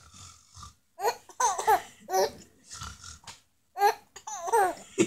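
Baby laughing and babbling in a run of short bursts.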